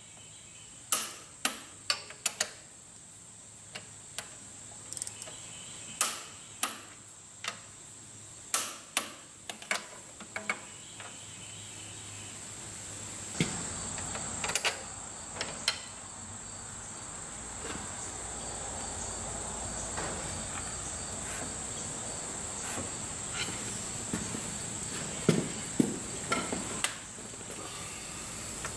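Click-type torque wrench clicking sharply, singly and in close pairs, as the connecting rod bolts of a Cummins 8.3L diesel engine are brought up to the 60 step of a 30-60-90 torque sequence. The clicks come thick in the first half, pause for a stretch, and return near the end.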